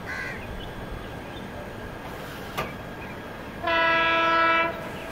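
Train horn sounding one blast of just over a second, several tones together, about three and a half seconds in. Under it runs the steady running noise of the train being ridden in.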